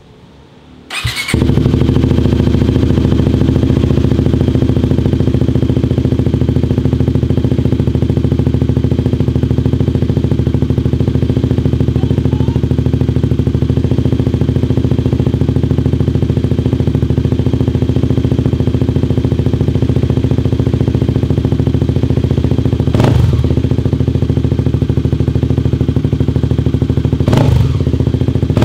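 Kawasaki Ninja 250 SL's single-cylinder four-stroke engine with an Arrow Thunder aftermarket exhaust, started about a second in and then idling steadily. Two short throttle blips come near the end.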